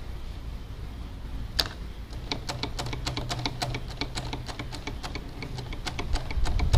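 Rapid, irregular run of small clicks from hand-tool work on a motorcycle's front brake master cylinder, starting with one sharp click about a second and a half in, over a low steady hum.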